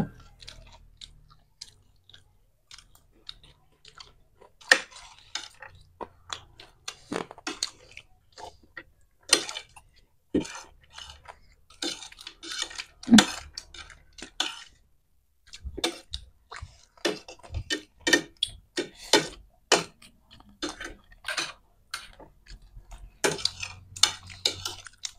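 Close-up eating of crisp panipuri and chatpate: irregular crunching and chewing, with occasional light clinks of dishes.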